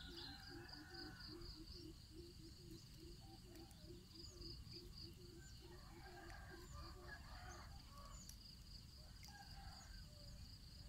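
Faint outdoor ambience: a steady insect trill with scattered bird chirps over it, and a low call pulsing about three times a second that stops about two thirds of the way through.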